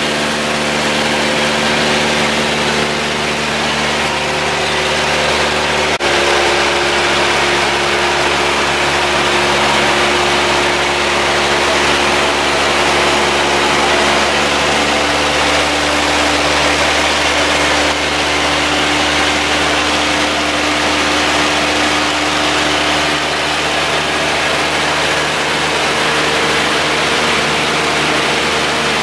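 Steady drone of a light aircraft's engine and propeller heard from inside the cabin in flight, with a loud rush of air over it. About six seconds in, the pitch of the drone steps abruptly.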